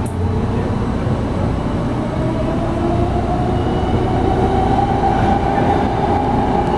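Tren Urbano metro train heard from inside the car as it accelerates away from a station: the electric traction motors give a whine that rises slowly in pitch over a steady rumble of wheels on track.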